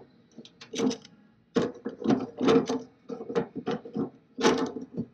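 Large channel-lock pliers turning a dipstick adapter nut loose on a steel oil pan: a run of short, irregular metallic clicks and scrapes as the jaws bite, turn and are reset on the nut.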